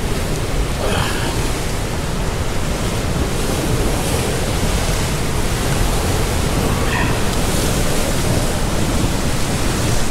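Steady rush of ocean surf breaking against the rocks below, mixed with wind.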